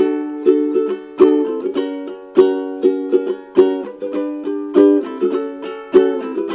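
Acoustic ukulele strummed in a steady rhythm, with accented strokes about every second and a bit and lighter strokes between them, changing chords from D to G to F-sharp minor in the song's instrumental break.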